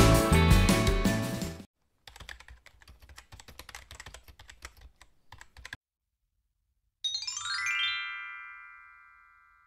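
Intro music fading out, then a keyboard-typing sound effect: quick irregular key clicks for about four seconds. About seven seconds in, a chime runs quickly upward, then rings on and fades.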